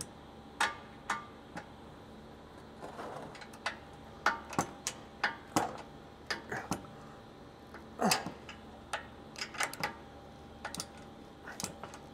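Hand ratchet clicking in short, uneven strokes as it tightens bumper mounting bolts: sharp separate clicks spaced irregularly, a few with a brief metallic ring.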